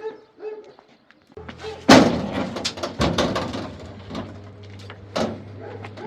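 A loud slam about two seconds in, like a door banging shut, followed by further knocks and clatter, over a low steady hum.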